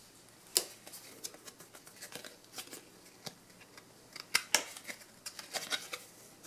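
Match Attax trading cards being handled and picked up from a pile: a string of sharp, papery card clicks and slides, card against card. One sharp click comes about half a second in, and they come more often and louder from about four seconds in to near the end.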